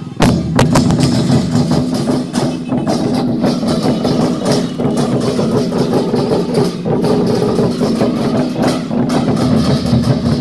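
Lion dance drum ensemble: several large lion drums beaten together with clashing hand cymbals, a dense, unbroken rhythm.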